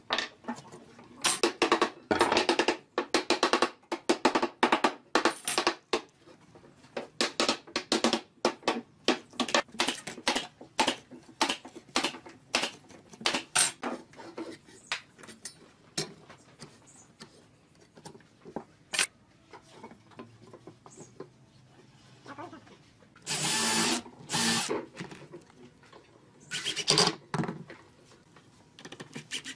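Woodworking sounds on pine: a long run of sharp, irregular knocks and taps on wood, then, in the last third, two short bursts of a power tool.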